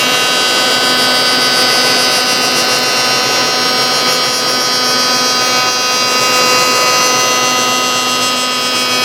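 Corded electric power planer running at full speed, its cutterhead shaving the edge of a wooden stool board to a scribed line: a steady whine over an even hiss of cutting. The cut starts deepest and the plane is tipped out to a shallower cut as it comes to zero.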